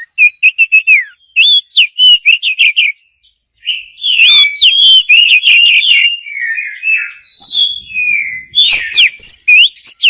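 Oriental magpie-robin singing: loud whistled phrases and quick varied notes, with a short pause about three seconds in. It is the song played to provoke rival males and call in females.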